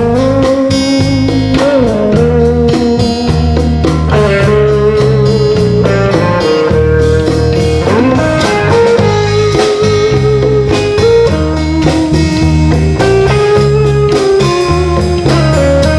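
Blues-rock music with guitar: a lead line that bends in pitch over a steady bass and drum beat.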